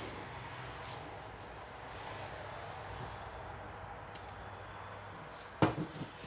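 A cricket chirping in a fast, even, pulsing high trill that does not let up. A single sharp knock sounds near the end.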